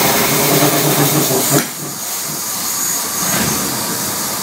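Antique WWII high-pressure torpedo/dive compressor and its driving engine running. The hum drops sharply about one and a half seconds in, leaving a steady hiss.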